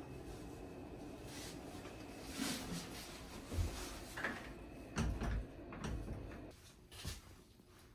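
A few soft knocks and bumps over a steady low hum, in the echo of a small bathroom; the hum drops away about six and a half seconds in.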